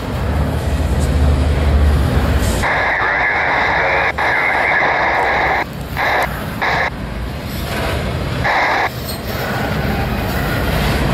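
Double-stack intermodal well cars rolling past, a steady rush of steel wheels on rail. A harsher grinding sound comes and goes in stretches of one to three seconds, with a low rumble in the first couple of seconds.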